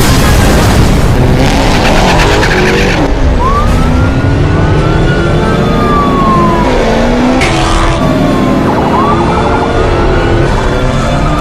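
Police sirens wailing, rising and falling, over car engines revving in a loud chase.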